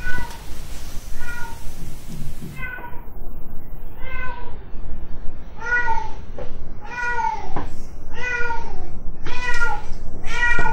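Domestic cat meowing loudly over and over, about eight drawn-out calls a second or so apart, getting louder toward the end.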